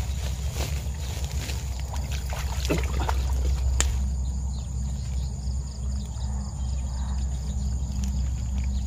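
Rustling and scattered clicks from a plastic sack of freshly trapped catfish being handled, over the first four seconds, with a sharp click at the end of them. A steady low rumble and a thin steady high tone run throughout.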